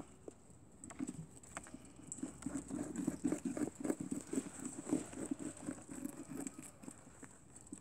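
Young German lop rabbits moving about in a plastic tub, making a run of soft, rapid taps, about five a second, that builds up after the first couple of seconds and fades near the end.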